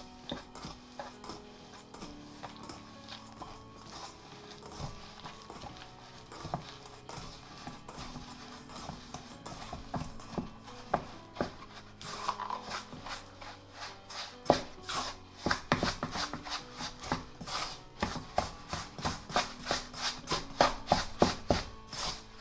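Bread dough being mixed and worked by hand, with rubbing and light tapping strokes. The strokes are sparse at first, then from about halfway they come quicker and more regularly, a few each second, over faint background music.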